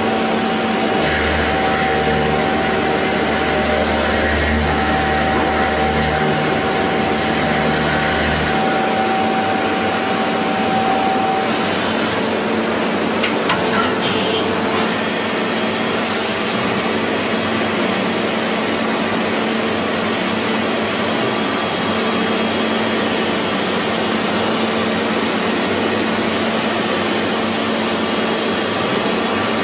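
CNC machine tool running with a steady mechanical noise and whine. A low hum stops about a third of the way in, there are two short bursts of hiss, and a high steady whine sets in about halfway through.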